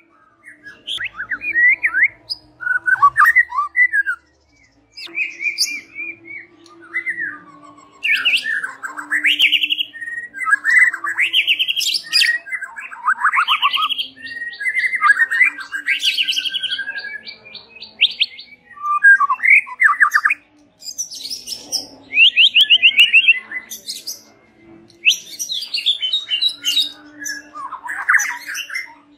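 White-rumped shama singing: a varied run of loud whistled phrases and rapid trills, broken by short pauses, with a fast rattle of clicks about halfway through.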